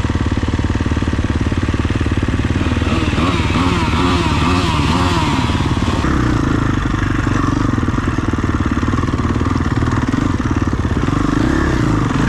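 Off-road vehicle engine running continuously, its pitch wavering up and down a few seconds in.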